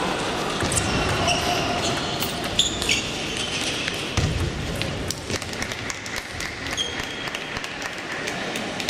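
Table tennis ball clicking off bats and table in a rally, amid irregular ball clicks from other tables around the hall.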